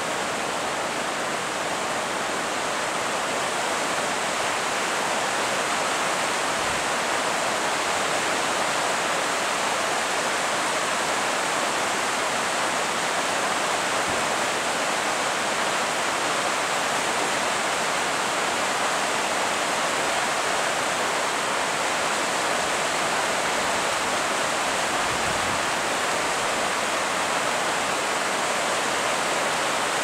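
Ryusei Falls, a tall waterfall, giving a steady, unbroken rush of falling water.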